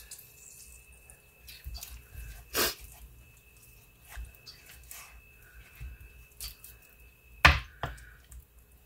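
A cut lime and hands rubbing lime juice over raw pork chops on a cutting board: faint wet squelches and light taps, with two louder knocks, one about two and a half seconds in and one near the end.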